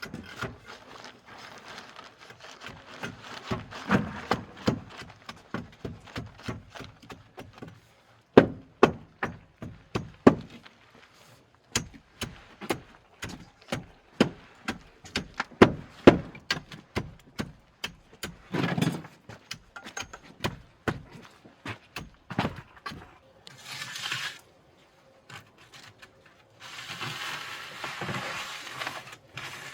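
Building-site work sounds: a long run of irregular knocks and thuds, with scraping between them. A steady hiss of noise comes in near the end.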